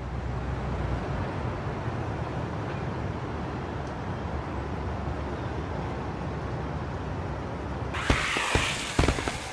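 A steady low rumbling noise. About eight seconds in, a firework goes off, crackling and fizzing with several sharp bangs.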